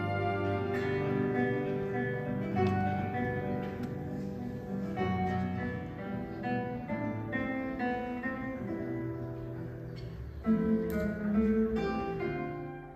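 Two nylon-string classical guitars playing a duet: a plucked melody over chords. The playing gets louder about ten and a half seconds in.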